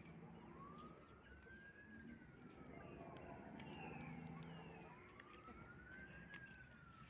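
A faint, distant wailing siren, its pitch slowly rising and falling about every four and a half seconds.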